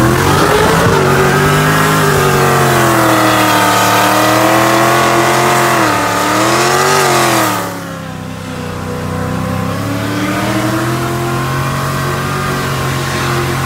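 Car engine heard from inside the cabin under hard acceleration, held at high revs for about seven seconds with a brief dip and rise in pitch. It then backs off to a lower, quieter steady note and starts to climb again near the end.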